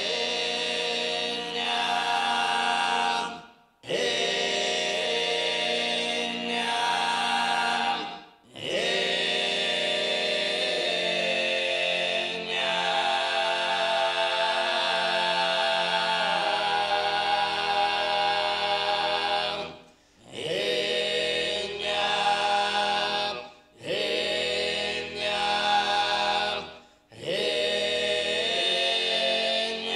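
Sardinian canto a tenore: a male vocal quartet singing a cappella, the deep throaty bassu and contra droning under the lead voices. The chords are held in long phrases, cut by about five short pauses for breath.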